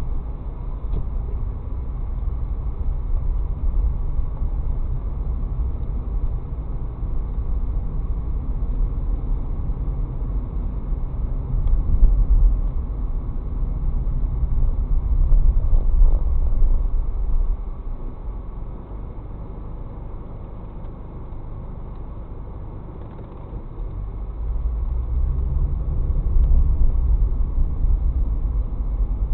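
Low rumble of a car driving, heard from inside its cabin through a dashcam's microphone. It quietens for several seconds about two-thirds through, then builds again.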